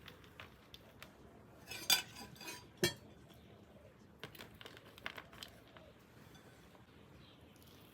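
Cutlery clinking against dishes: two louder clinks with a brief ring about two and three seconds in, then a few lighter taps.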